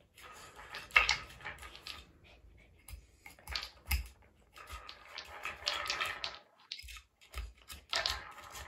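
A small dog biting and nosing at plastic cat toys: irregular rattling, scraping and clattering, with sharp knocks about one second and about four seconds in.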